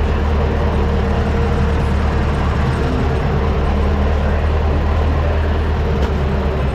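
Tractor engine running steadily under way, a constant low drone with a hum.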